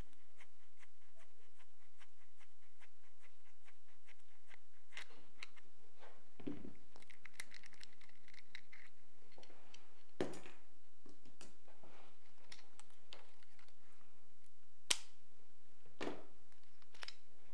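Screwdriver working the screw out of a PT-1 buttstock's sling mount: small clicks and scrapes, then metal parts handled and set down, with a few knocks and one sharp click near the end, the loudest sound.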